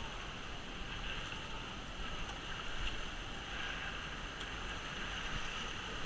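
Steady rush of river water around a rafting boat while the crew paddles forward.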